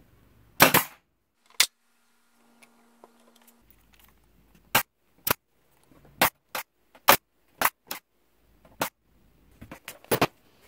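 Pneumatic air nailer firing tiny brad nails through a hardboard backing into a pine star: about a dozen sharp shots at uneven intervals, several coming in quick pairs.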